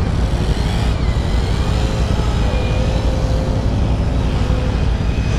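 ATV engine running steadily under way, a dense low rumble that stays level throughout.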